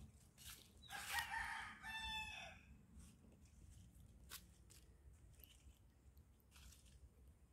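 A rooster crowing once, starting about a second in and lasting under two seconds. A few faint clicks follow over an otherwise quiet background.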